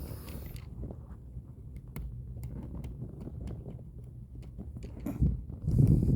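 Handling noise from working a seatbelt retractor back into a seat: scattered light clicks and knocks, with louder thumps and rustling near the end.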